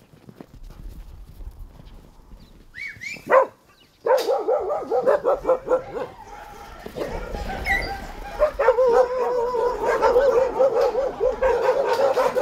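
A dog gives one yelp that falls in pitch about three seconds in; from about four seconds in, many dogs bark and yelp together without a break.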